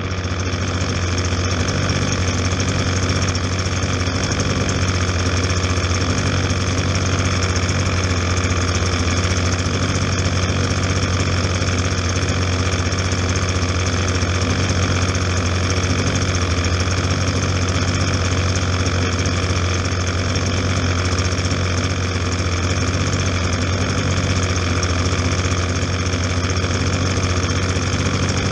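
An engine running steadily at a constant speed, a loud, unchanging drone with a strong low hum.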